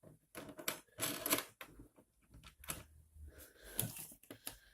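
Irregular clicks and light clatter of hard parts handled by hand: the printer's acrylic frame pieces and the nuts and threaded rods that hold them.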